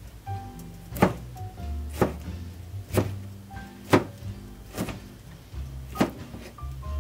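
Kitchen knife slicing a tomato on a plastic cutting board, the blade knocking sharply on the board about once a second, over background music.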